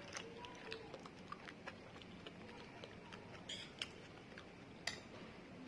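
Quiet eating sounds of Maggi instant noodles being chewed: scattered small clicks and ticks, with a brief hiss about three and a half seconds in and a sharper click near five seconds.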